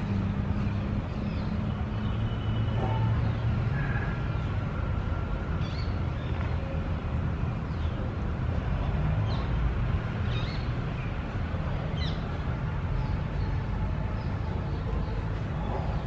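Outdoor background: a steady low rumble with short bird chirps now and then.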